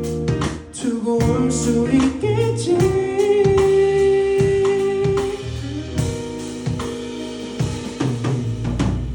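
Band music: a drum kit with snare hits keeps a beat under singing, and one long note is held for about two and a half seconds, starting about three seconds in.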